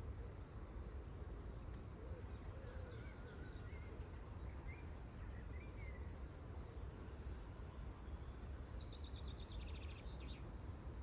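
Outdoor ambience: a steady low rumble with faint birdsong over it, scattered short chirps through the first half and a fast rattling trill near the end.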